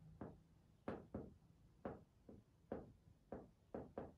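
Chalk tapping and scratching against a chalkboard as words are written: about ten short, faint taps at an uneven handwriting pace.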